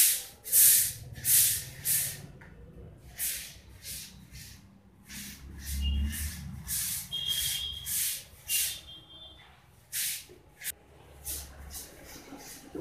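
A series of short, irregular hissing, rubbing noises, about one to two a second. A few faint high chirps come midway.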